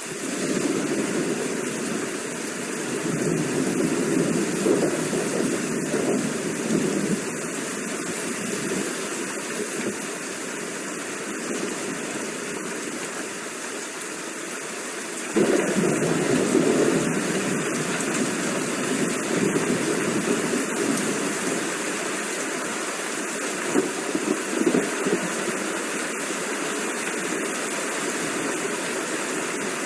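Steady rain falling, with low rolling swells of distant thunder. About halfway through, the sound steps suddenly louder.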